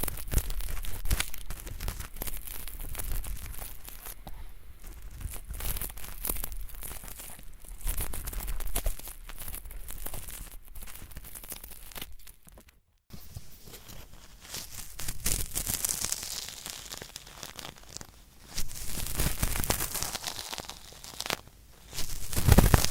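Ear-cleaning scratching close to a microphone ear: an ear pick scraping thin, flaky earwax in rough, crackling strokes. About 13 s in the sound cuts out for a moment. After that a cotton swab rubs hard on hard earwax in louder, grinding bursts.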